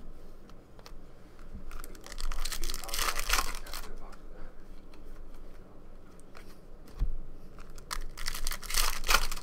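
A foil trading-card pack wrapper being torn open and crinkled by hand, in two bursts: one about two seconds in and one near the end. Between them, about seven seconds in, comes a short thump.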